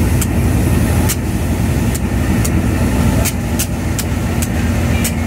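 Diesel locomotive running under way, heard from its cab: a steady low drone with a held tone, broken by sharp clicks at uneven intervals.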